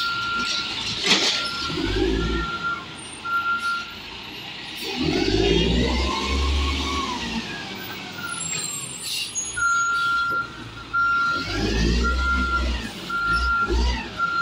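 Diesel Peterbilt 320 garbage truck running, its engine revving up and back down twice, with a rising-then-falling whine each time. A backup-style warning beeper sounds a steady repeating beep, about one a second, near the start and again through the second half.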